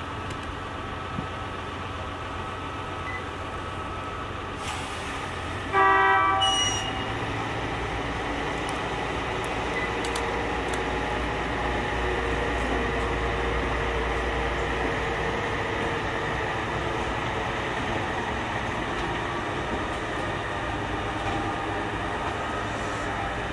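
A short horn blast from a diesel shunting locomotive, about a second long, about six seconds in and the loudest sound here. Around it, the steady low rumble of the locomotive's engine and the slowly rolling train cars.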